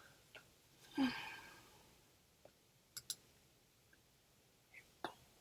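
Computer mouse clicking while editing, with a quick double click about three seconds in and single clicks scattered around it. About a second in there is a short breathy exhale, like a sigh, the loudest sound here.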